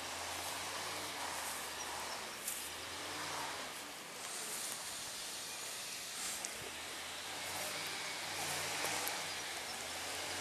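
Outdoor ambience: a steady hiss with light rustling, over a faint low steady hum.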